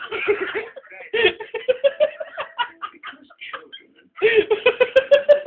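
Bursts of laughter-like vocalising: quick runs of short pitched pulses, with a brief lull a little past halfway before a denser run.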